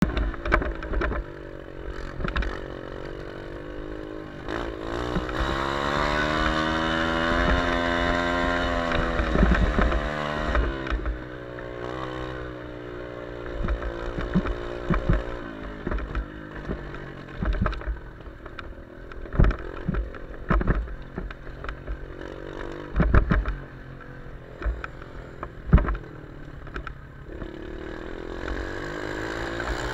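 ATV engine running along a rough dirt trail, its pitch climbing about five seconds in, held high for a few seconds, then falling back to a lower steady drone. Sharp knocks and thumps come through several times later on, along with low wind buffeting on the microphone.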